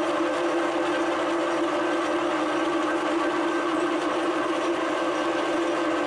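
Milling machine running with its insert cutter head spinning: a steady, loud machine hum with one strong even tone.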